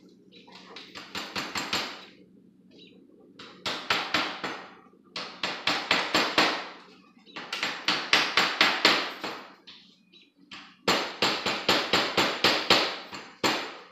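Hammer driving small trim nails into a screen door's wooden trim: five runs of quick taps, several a second, with short pauses between runs.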